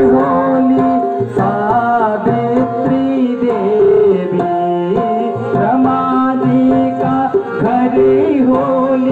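Harmonium holding and stepping between notes over a tabla rhythm, playing a Garhwali mangal geet.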